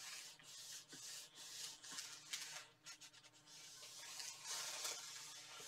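Small craft iron sliding over brown kraft paper laid on a t-shirt: a faint rubbing scrape of the soleplate on paper in repeated strokes. The heated paper is drawing leftover heat-transfer vinyl adhesive up out of the fabric.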